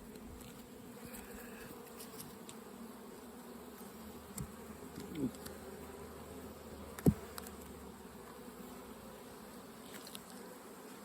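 Honeybees buzzing steadily in an open hive, a continuous low hum of the colony. A short rising-and-falling buzz about five seconds in and a brief louder sound about seven seconds in.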